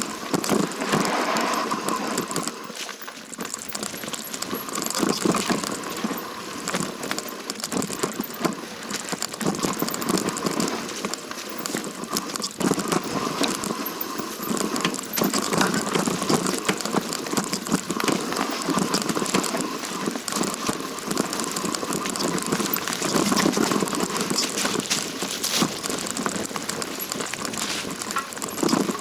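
A hiker's footsteps crunching and scuffing down a rough mountain trail, with many small irregular crackles.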